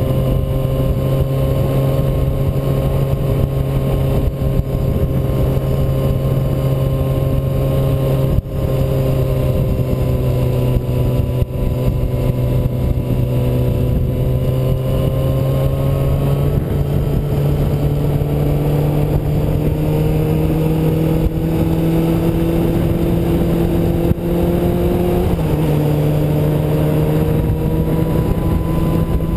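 Yamaha YZF-R6 sportbike's inline-four engine running at a steady cruise, heard from the bike with wind rush. The pitch climbs slowly in the second half and changes step once near the end.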